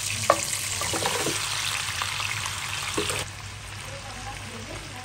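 Hot oil sizzling loudly in a pan as raw chicken pieces are tipped in, with a few soft thuds of meat landing. The sizzle drops sharply a little after three seconds in.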